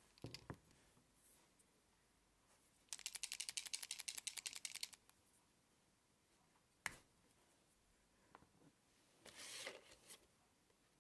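Paint pen being shaken: the mixing ball inside rattles in about two seconds of rapid, even clicks, which mixes the paint. A single sharp click follows as the cap comes off, then a brief rustle of paper near the end.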